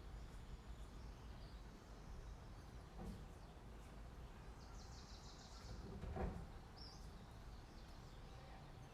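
Quiet outdoor ambience with a steady low rumble; a bird gives a short rapid high trill about five seconds in and a brief chirp a moment later. A soft thump sounds just after six seconds.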